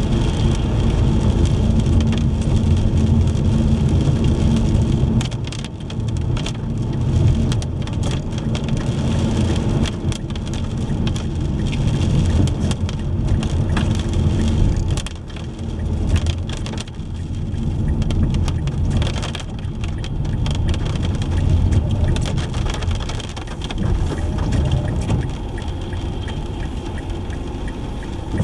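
A car driving in the rain: steady low road and engine rumble, with many small sharp clicks of raindrops hitting the car.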